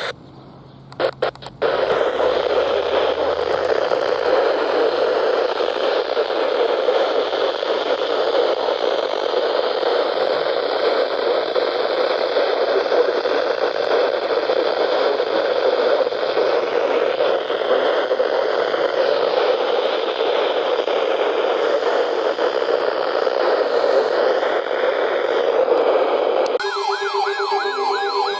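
Weather radio receiver hissing with steady static, with no broadcast voice, after a couple of short crackles. Near the end the static cuts off abruptly and a warbling, siren-like alert tone begins.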